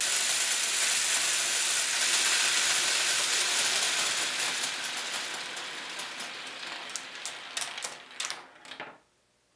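LEGO particle accelerator running: the motor-driven, geared-up wheels whirr as small LEGO balls rattle around the plastic train-rail ring, a dense mechanical clatter. It fades gradually and breaks into a few separate clicks before it cuts off near the end.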